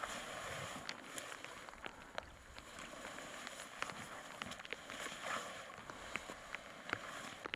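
Rustling and brushing of spruce branches and outdoor clothing as someone pushes through dense brush, swelling near the start and again about five seconds in, with many scattered sharp ticks and snaps.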